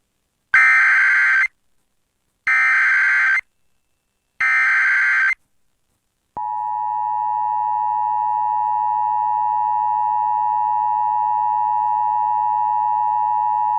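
Three short, buzzy Emergency Alert System SAME header data bursts, each about a second long with a second's gap between them. They are followed by the EAS two-tone attention signal (853 and 960 Hz) held steadily for about eight seconds. This is the opening of an emergency alert broadcast announcing a flash flood warning.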